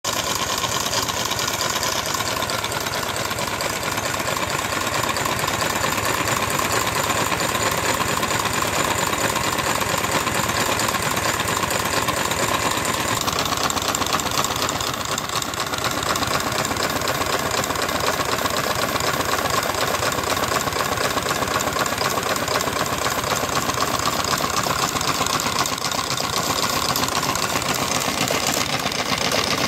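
A 5-inch gauge live-steam model of an NSWGR C36 locomotive running fast on blocks with its driving wheels spinning free: a steady stream of rapid exhaust beats and hiss mixed with the clatter of the rods and valve gear.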